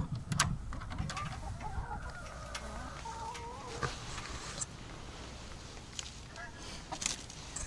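Laying hens clucking, with a few sharp clicks and knocks about half a second in, near four seconds and near seven seconds.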